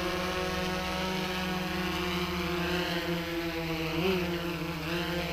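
DJI Phantom 3 quadcopter's propellers humming steadily as it is let down slowly to land, with a brief wobble in pitch about four seconds in. Right at the end the motors begin to wind down.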